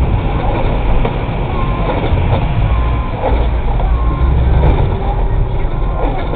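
Steady road noise heard from inside a car cabin: a low rumble of engine and tyres on a wet, slushy carriageway, with a lorry passing close alongside at the start.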